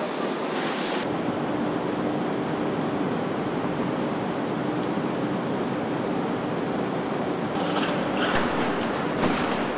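Steady car assembly-line factory noise, with a faint low hum and a few short sharp sounds near the end.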